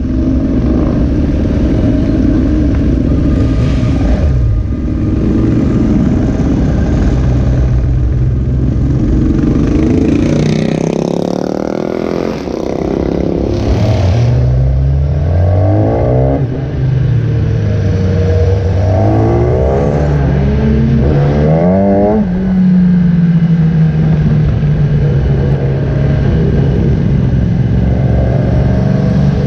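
Motorcycle engine running under way, its revs climbing and dropping several times in the middle stretch, then holding fairly steady near the end.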